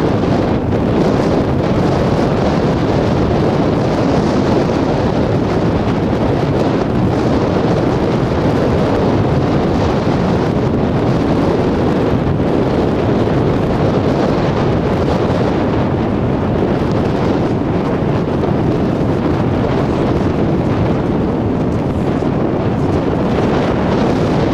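Strong wind buffeting the microphone, a steady loud rumbling noise, with sea surf breaking underneath.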